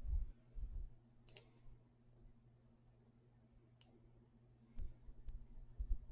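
Scattered light clicks and soft low knocks of hands working paper and a cutting tool on a craft table, cutting small grass-like triangles into a paper strip by hand.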